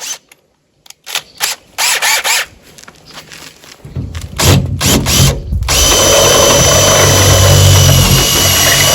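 Power drill boring a hole through the bus's side panel for an electric hookup socket: a few short bursts of the trigger at first, then from about four seconds a loud continuous run with a steady high-pitched whine as the cutting bites.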